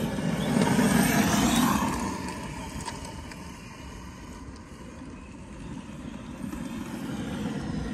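Brushless electric RC monster trucks driving hard on gravel. The motor whine and tyre noise are loudest about a second in, and the whine falls in pitch as they pull away. The sound grows fainter, then builds again near the end.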